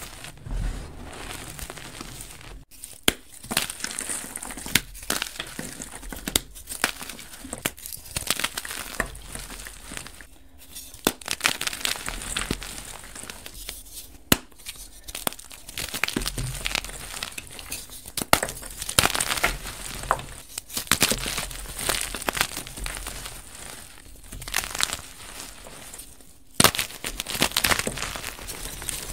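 Blocks of dyed gym chalk being squeezed, crushed and crumbled by hand into powder: a dense crunching and crackling full of sharp snaps, with a few brief pauses.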